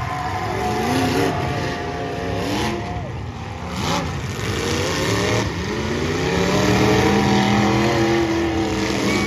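Several demolition derby car engines revving, their pitch climbing and dropping as the cars accelerate, with a single bang about four seconds in.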